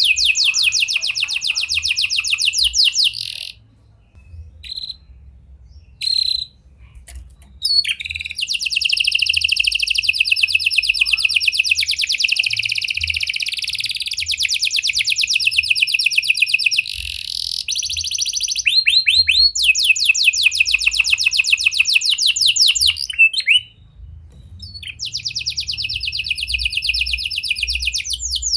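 Domestic canary singing long, fast rolls of rapidly repeated high notes. It pauses for a few seconds about four seconds in, then sings one long unbroken stretch, a short break, and another roll near the end. It is a canary song trained to carry prenjak (prinia) and lovebird phrases.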